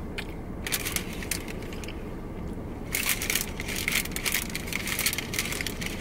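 Crinkling and crackling of Taco Bell food packaging being handled, in irregular clusters of sharp crackles about a second in and again from halfway on, over a steady low rumble.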